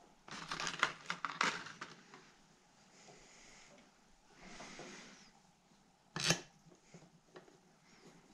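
Crackling and clicking of clear plastic rebuild-kit packaging and small carburetor parts being handled, with a brief soft rustle in the middle and one sharp click about six seconds in.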